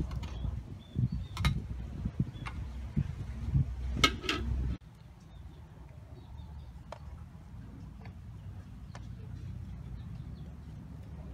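A metal spatula clinking and scraping against a steel tray as a fried omelette is lifted onto it, with a sharp clatter about four seconds in. Then the sound cuts abruptly to a quieter steady background with a few faint taps.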